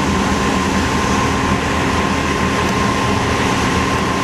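Semi trucks' diesel engines idling, with one steady high tone held throughout.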